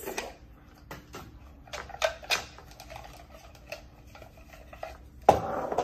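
Paper cards and slips rustling and clicking against the sides of a clear plastic drawing box as a hand rummages inside it to pull one out, in scattered light clicks. A sudden, louder knock comes near the end.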